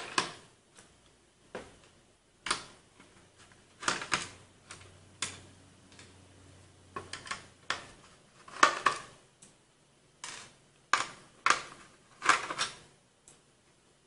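Irregular clicks and taps of a screwdriver on small screws and hard plastic as the cover of an Asus Sabertooth Z87 motherboard is unscrewed and taken apart, with a few louder knocks of plastic parts near the middle and end.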